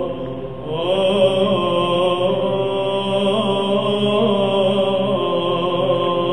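Slow vocal chant sung in long held notes over a steady sustained drone, in the manner of Orthodox church chant.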